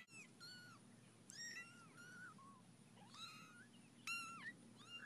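Cat mewing faintly: a string of about eight short, high-pitched mews, each rising and falling in pitch, a few seconds apart or in quick pairs.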